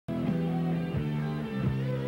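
Music starting abruptly: a line of held low notes, each changing pitch about every half second.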